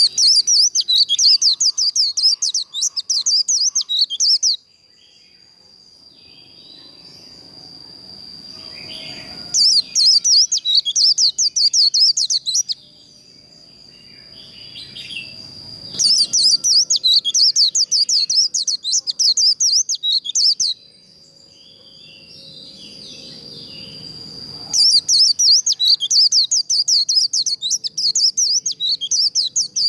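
White-eye (vành khuyên) singing its rapid, chattering 'líu' song in four loud bursts of three to five seconds each, with pauses of a few seconds between them. A steady high-pitched whine runs underneath throughout.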